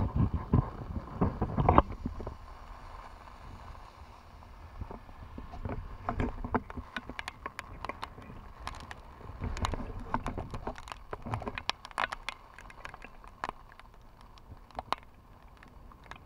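Wind buffets the microphone in loud low gusts for about the first two seconds. After that come many sharp, irregular taps, the patter of raindrops striking the wet camera.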